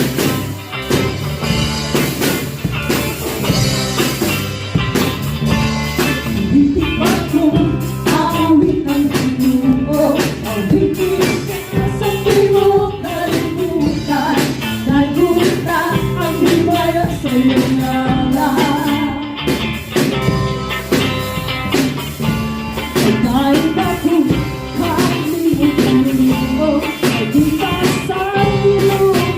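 Live church band music: a voice singing a melody over a drum kit keeping a steady beat, with guitar.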